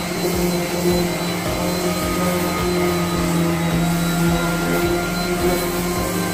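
Corded random orbital sander running steadily, its pad sanding a plastic car bumper, with a constant motor hum.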